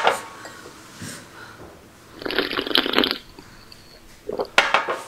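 A person huffing air hard through the mouth to cool a tongue burning from extremely spicy noodles. There is one long rough breath about two seconds in and a few short sharp breaths near the end.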